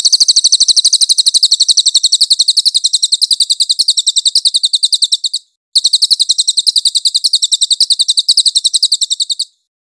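Cililin (crested jay) giving its call: a rapid, even rattle of high notes, about nine a second, in two long runs with a short break about halfway through.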